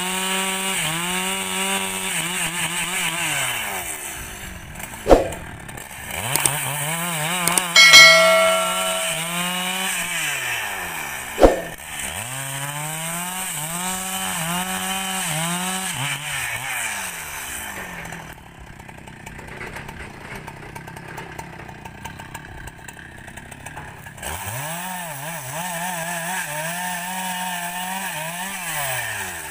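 Husqvarna 395 two-stroke chainsaw cutting through rubber-tree logs, its engine revving up and bogging down again and again as the chain bites. It drops to a quieter run for several seconds about two-thirds of the way through, then revs up again near the end. There are two sharp knocks, about five and eleven seconds in, and a brief loud high whine about eight seconds in.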